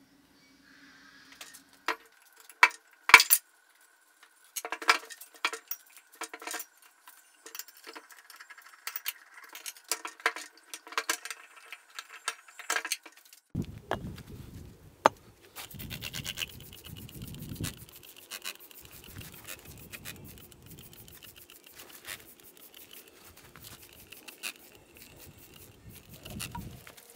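Sharp metallic clinks and taps as a grooved pulley is handled and seated at the base of a milling machine's spindle motor. About halfway through this gives way to wind rumbling on the microphone and a dense fine crackle, with foam cleaner being sprayed from a hand trigger sprayer onto a cast metal gearbox housing.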